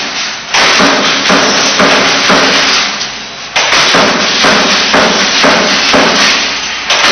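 Background music with a steady, percussive beat.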